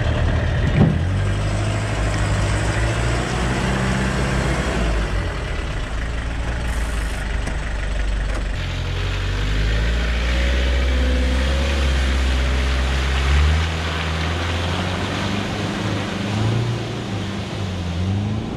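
Pickup truck engines running off-road, the engine pitch shifting in steps several times as the revs and gears change, with revs wavering up and down near the end. A single short knock sounds about a second in.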